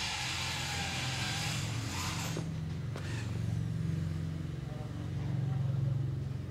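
A power tool whirring steadily, cutting off about two and a half seconds in, over a steady low engine-like hum that swells a little near the end.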